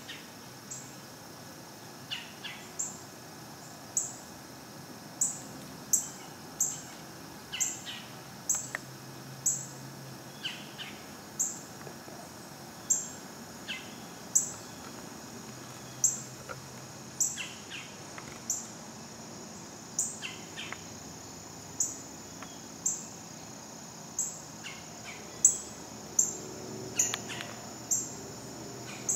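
Woodland ambience: a steady high drone of insects, a sharp high chirp repeating roughly once a second, and a few other scattered bird calls.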